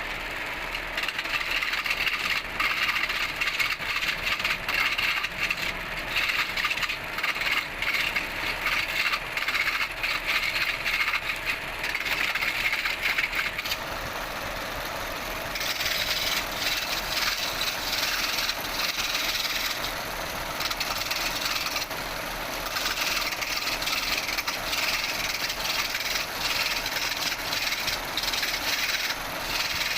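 A turning tool cutting into spinning wood on a wood lathe, a continuous scraping, rattling cut. About halfway through the cut turns brighter and hissier.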